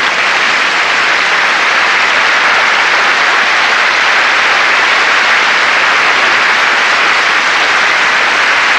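Audience applauding, a steady, sustained round of applause.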